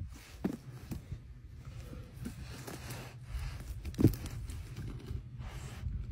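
White lion gnawing and biting at a whole pumpkin: irregular crunches and scrapes of teeth on the rind, with a sharper crunch about four seconds in.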